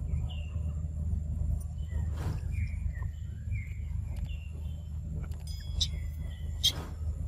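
Outdoor ambience: a steady low rumble with scattered short high chirps from birds or monkeys, and a brief sharp squeak about six and a half seconds in.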